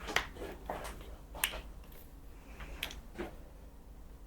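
About half a dozen short, sharp clicks, irregularly spaced and mostly faint. The clearest comes just after the start and another about a second and a half in.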